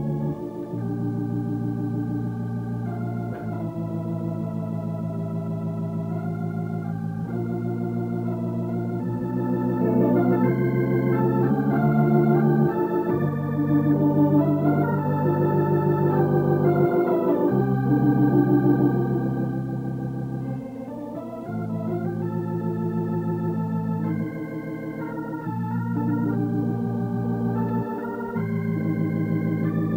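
Organ music accompanying the silent film: slow, sustained chords that change every second or few, with no drums or other percussion.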